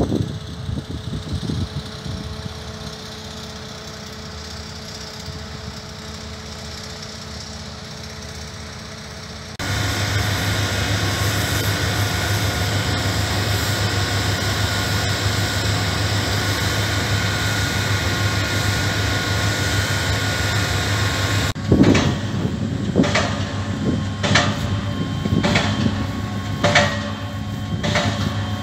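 Heavy diesel construction machinery, piling and drilling rigs, running steadily: quieter at first with a few knocks, then a louder drone with a deep hum from about ten seconds in. For the last seven seconds, sharp strikes come about once a second, typical of a hammer driving piles.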